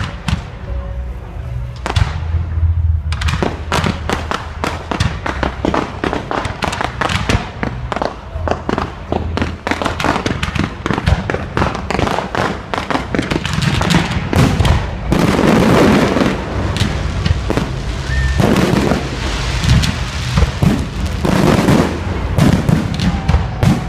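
Fireworks display: a few scattered bangs at first, then from about three seconds in a dense, rapid string of bangs and crackles, with thick bursts of crackling later on.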